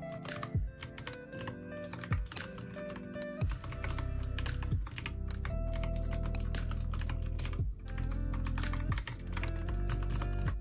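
Typing on a Royal Kludge RK61 60% mechanical keyboard: a quick, irregular run of key clicks, over background music with a heavy bass line.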